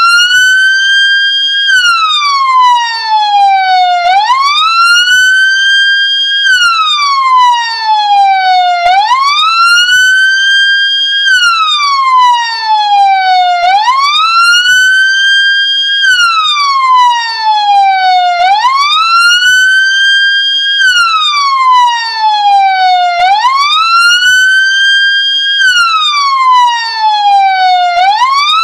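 Ambulance siren sounding a wail. The pitch climbs quickly, holds briefly at the top, then slides slowly back down, repeating about every four and a half seconds, six times in all.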